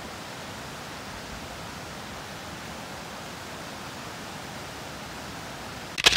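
Steady rush of a cascading waterfall pouring over rock ledges. A brief, louder burst of noise near the end.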